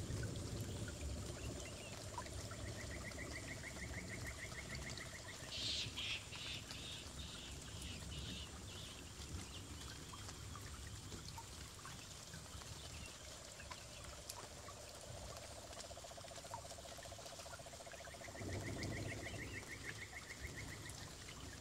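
Forest ambience with animal calls: a low rapid trill that runs for several seconds at a time and a higher, shorter rapid trill heard twice. About six seconds in comes a short series of loud, sharp calls that fade over a couple of seconds.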